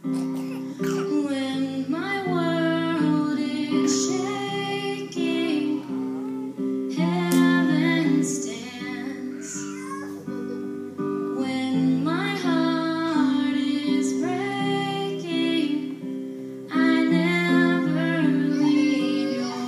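A woman singing with acoustic guitar accompaniment, her voice in phrases of a few seconds over held guitar chords that change every second or so.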